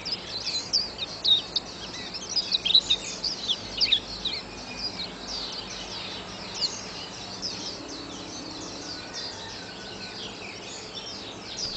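White-eye song: a fast stream of high chirps and twitters, densest in the first half and thinning later.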